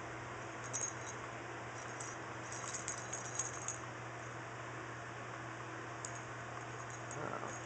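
Light metallic jingling and ticking, in short clusters about a second in, for about a second around the three-second mark, and again near the end, as a cat paws and noses among its toys, over a steady low hum.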